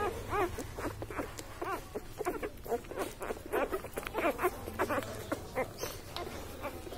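Newborn Labrador puppies squeaking and whimpering while nursing: many short, rising-and-falling squeaks in quick succession, mixed with small clicking sounds.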